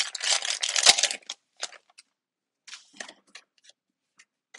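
Foil wrapper of a Pokémon trading-card booster pack being torn open: a crinkly rip of about a second with one sharp snap near its end. Then come scattered soft crinkles and rustles as the pack and cards are handled.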